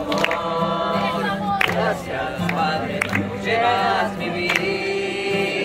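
A mixed group of men and women singing together to a strummed acoustic guitar.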